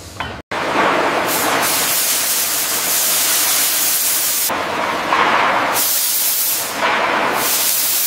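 Loud, steady hissing rush of steam. It starts abruptly about half a second in and swells and eases a few times.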